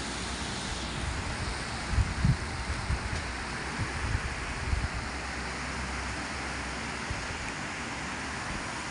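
Steady rushing noise of thunderstorm wind and rain, with gusts buffeting the microphone in short low thumps around two and four seconds in.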